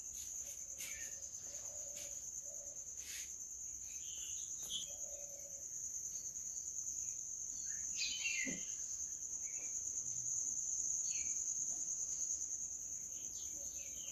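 Quiet room tone carrying a steady high-pitched trill, with a few faint clicks and small sounds scattered through it.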